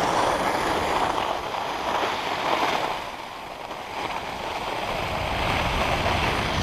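Skis sliding and scraping over packed snow while skiing downhill, a steady hiss mixed with wind buffeting the camera's microphone, easing briefly about three seconds in.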